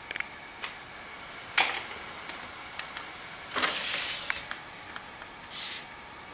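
Steady hiss with scattered light clicks and knocks: a sharp knock about a second and a half in and a short rustling burst around the four-second mark, typical of a handheld camera being moved.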